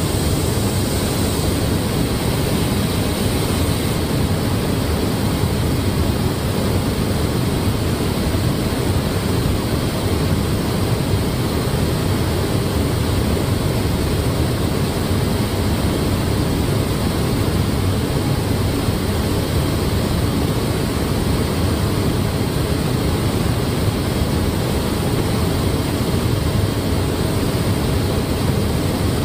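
Steady rushing air noise of a robotic car-body paint booth, with no distinct knocks or changes.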